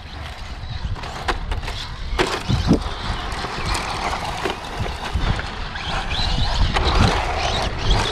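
A Tamiya XV-02 Pro 1/10 electric RC rally car running over a dirt track, its brushless motor whining faintly as its tyres scrabble on loose dirt, with a few short knocks. A steady low rumble runs underneath.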